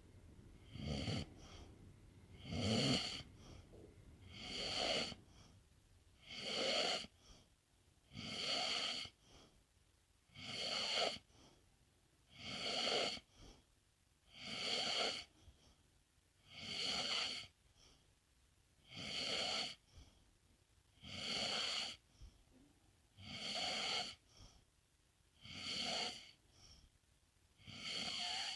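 A sleeping pet snoring in a steady, even rhythm of about one breath every two seconds.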